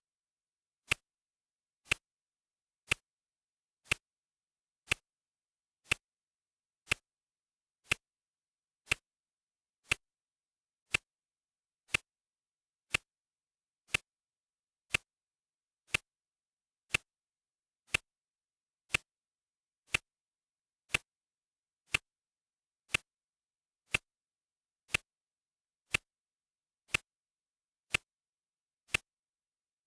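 Clock ticking steadily, one sharp tick every second.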